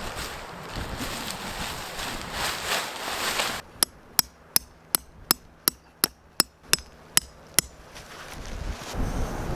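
A steady wash of wind and surf, then about eleven sharp hammer-like knocks at roughly three a second; the surf wash comes back near the end.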